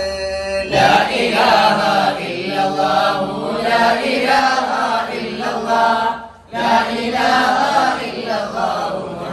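Several men chanting an Arabi-Malayalam devotional baith together, a sung praise of a saint, with a brief pause about six seconds in.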